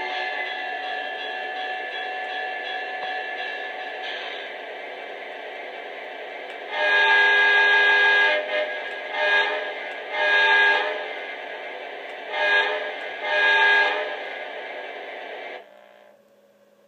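Lionel Legacy SD80MAC O-gauge model locomotive's onboard sound system playing a diesel engine running, then, about seven seconds in, five horn blasts: a long one, a short one, a long one, a short one and a long one. Near the end the engine sound cuts off abruptly.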